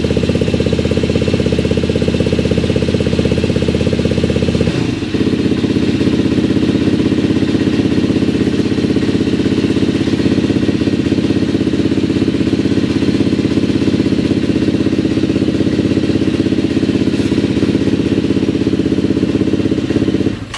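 KTM 250 EXC-F single-cylinder four-stroke dirt bike engine running steadily on its first start after a top-end rebuild (new piston rings, valve seals). Its note changes after a brief dip about five seconds in, then holds steady.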